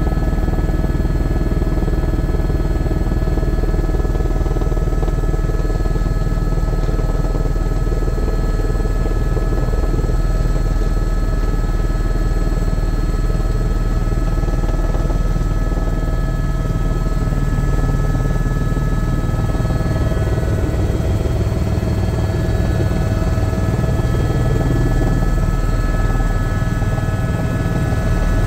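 Helicopter engine and rotor noise heard inside the cabin: a loud, steady drone with a couple of steady high whines on top. Its low drone changes in tone about twenty seconds in.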